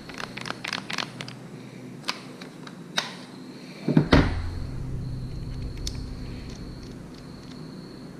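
Small clicks and taps of metal and acrylic pen kit parts being handled and fitted together, with one louder thump just before four seconds in.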